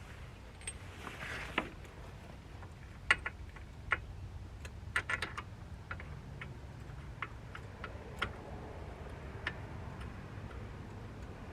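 Irregular sharp clicks and knocks of hand tools and parts being handled during rear hub assembly work, with a quick cluster of clicks about five seconds in, over a faint low hum.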